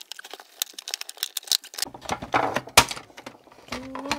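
Plastic case of a small UPS being taken apart. First come light clicking as the single case screw is turned out, then louder clicks and cracks as the snap-fit clips of the plastic housing let go, the loudest a sharp crack about three seconds in.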